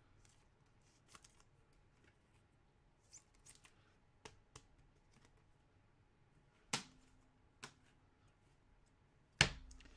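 Trading cards being handled: soft rustles and scattered clicks, with sharper clicks about seven seconds in and the loudest click, with a thump, near the end.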